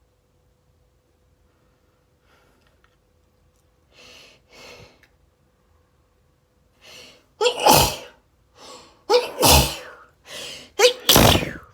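A person sneezing three times in quick succession in an allergic sneezing fit. Each loud sneeze comes about two seconds after the last, with a sharp intake of breath before it. A couple of softer breaths come first, before the sneezes start about seven seconds in.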